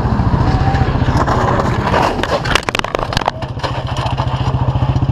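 A vehicle engine running with a fast, even pulsing throughout. About two and a half seconds in comes a quick run of sharp clattering knocks.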